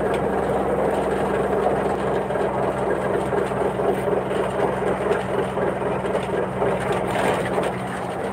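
Steady running noise of a passenger train heard from inside the coach, a constant low hum under an even rumble.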